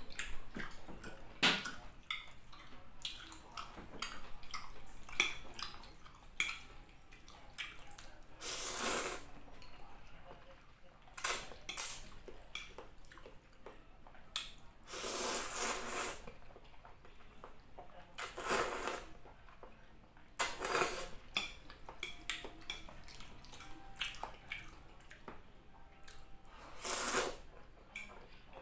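Close-up eating sounds: spicy noodles slurped in several rushing slurps of up to about a second each, between many small clicks of a fork and clam shells against a plate.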